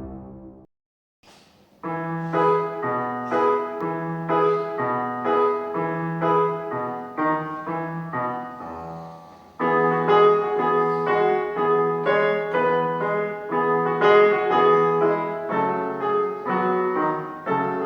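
Background piano music. After a brief gap, a slow melody of separate notes begins about two seconds in, softens near the middle, then resumes fuller.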